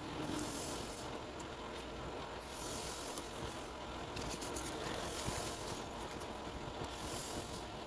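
Steady low background rumble, over which come faint scratching, rustling and small ticks as cloth strips and a plastic bottle cap are handled and worked with a thin metal tool.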